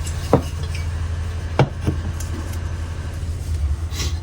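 A few short metal clinks and knocks as the parts of a diesel heater's burner assembly are handled and fitted together, over a steady low hum.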